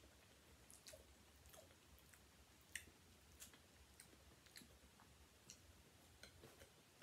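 Faint chewing and soft irregular mouth clicks of a person eating French fries, over a low steady room hum.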